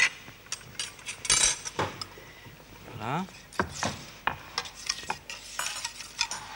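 Kitchen utensils knocking and scraping against a frying pan and small dishes, in a series of short clinks and knocks.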